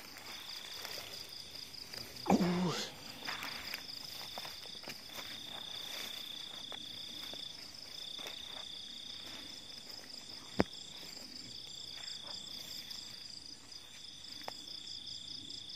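Night insects, crickets, trilling: a steady high trill in repeated stretches of a second or two, with a faster pulsing chirp above it. A short loud low sound comes about two seconds in, and a single sharp click near the middle.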